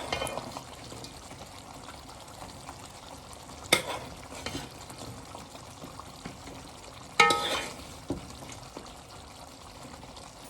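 Tomato stew sizzling in a pot as chicken gizzards are stirred in, with a steady frying hiss. A utensil clanks sharply against the pot twice, about four and seven seconds in, the second clank ringing briefly.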